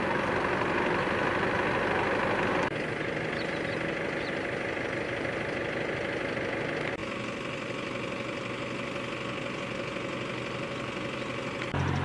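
Steady roadside traffic and vehicle engine noise, which shifts abruptly about three seconds in and again about seven seconds in. Near the end a louder, low, steady engine hum sets in.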